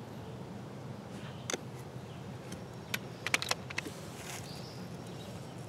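Knife blade being rocked and pressed through the fibres of a green wooden pole while cutting a notch, giving a few sharp clicks and cracks, with a quick cluster of them about three seconds in.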